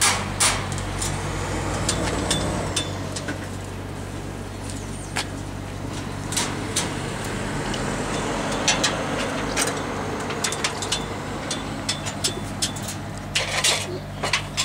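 Steady low hum of an idling lorry engine with road traffic passing, and many sharp clicks and knocks scattered over it.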